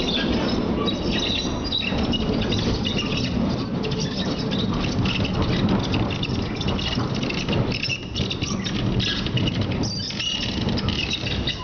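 Rusich articulated metro car running, with a steady rumble of wheels and body and many short, high-pitched squeaks and creaks from the car coming and going throughout.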